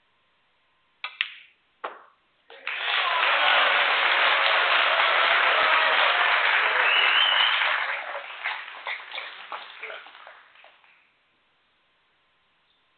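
Two sharp clicks, a snooker cue tip striking the cue ball and then the cue ball striking the pink, followed by an audience applauding the potted pink. The applause holds steady for about five seconds, then thins to scattered claps and dies away.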